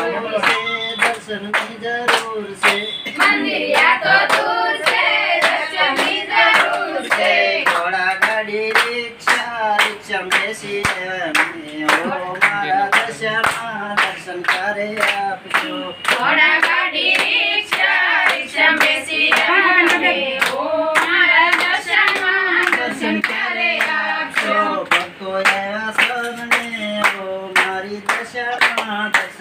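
A mixed group of women and men singing a devotional song together, clapping their hands in a steady, even beat.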